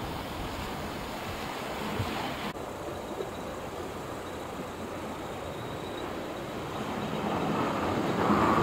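Steady rushing noise with no clear pitch. It grows louder over the last couple of seconds.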